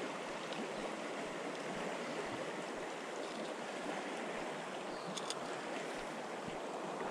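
Shallow creek water running steadily, an even rush of flowing water, with two faint ticks about five seconds in.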